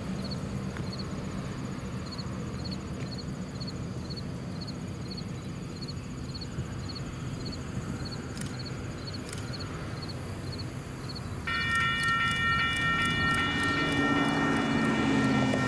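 Railroad grade-crossing warning bell starts ringing steadily about three quarters of the way in, suddenly louder than what came before, as a freight train approaches. Before it, a low steady rumble and insects chirping about twice a second.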